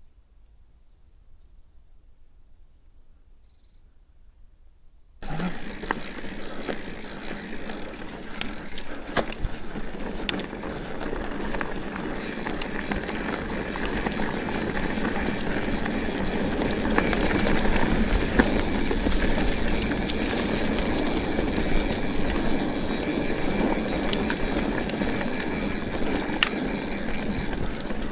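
Faint bird chirps, then about five seconds in the noise of a mountain bike being ridden starts abruptly: tyres rolling over the trail with frequent rattles and knocks from the bike.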